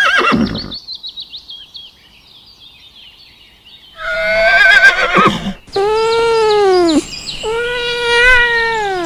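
Faint high bird chirping, then about four seconds in a horse whinnies with a quavering call. After that a cat gives two long, drawn-out meows.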